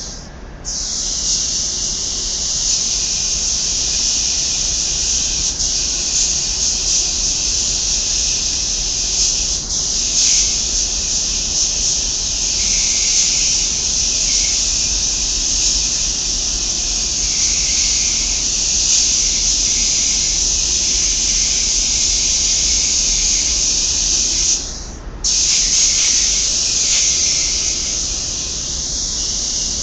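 Paint spray gun hissing steadily as it sprays paint onto a steel part. The hiss cuts out briefly about 25 seconds in when the trigger is released, then resumes.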